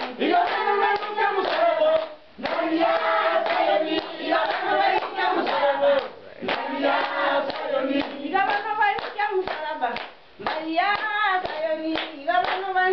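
A group of voices singing a church hymn, with hand clapping keeping the beat; the singing comes in phrases with short breaks about two seconds in and near ten seconds.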